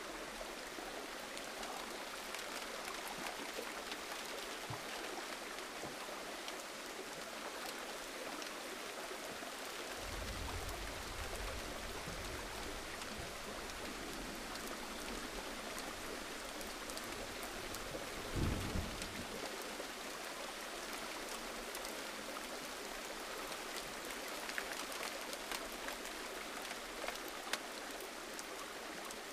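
Steady gentle rain falling, an even hiss with scattered drops. A low rumble swells for a few seconds about a third of the way in, and a single louder thud comes a little past the middle.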